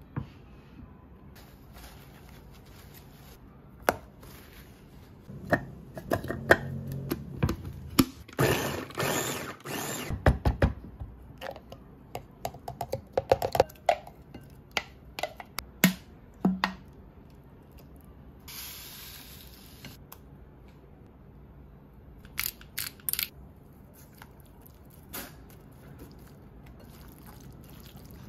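Kitchen food-prep sounds: scattered knocks and clicks of utensils and dishes, a busier stretch of handling about a third of the way in, and a short steady hiss about two-thirds in.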